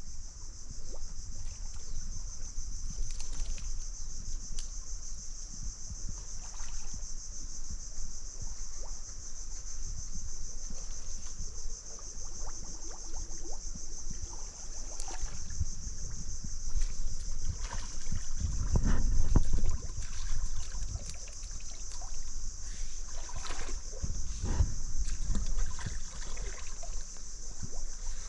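Steady high-pitched drone of insects, with a low rumbling and scattered knocks over it that are loudest a little past the middle and again near the end.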